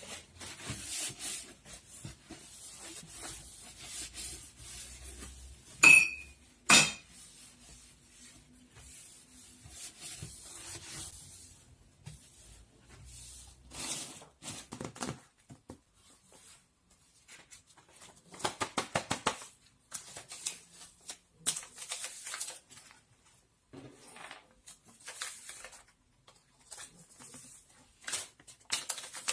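Dishes and cutlery being handled, with scattered clatter and rustling and two sharp ringing clinks about six and seven seconds in.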